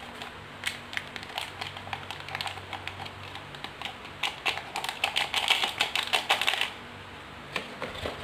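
A drink sachet crinkling and being tapped as powdered collagen drink is shaken out into a plastic measuring jug of water: a run of irregular small clicks and rustles, densest a little past the middle and thinning out near the end.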